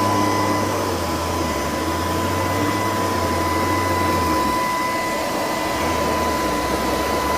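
LG R9 robot vacuum running: a steady whir of its suction motor with a steady high whine. A low hum under it drops out about four and a half seconds in and comes back a little over a second later.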